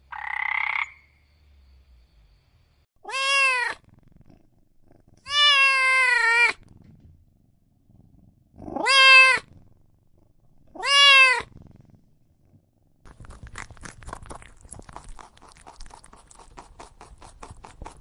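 Cat meowing four times, each meow rising and then falling in pitch. A short rasping call comes right at the start, and the meows are followed by a fast run of soft ticks or patter.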